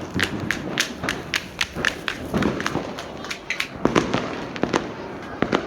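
Fireworks going off: a rapid, irregular string of sharp bangs and cracks, about three or four a second, over a steady rumble, loudest about four seconds in.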